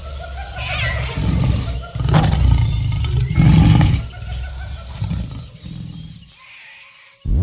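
Background electronic music: a passage of deep, distorted bass in uneven pulses that fades out about six seconds in.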